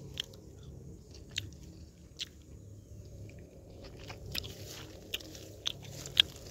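A person chewing karvand berries close to the microphone: a string of separate sharp clicks and crunches over a faint low background, the loudest a little after six seconds.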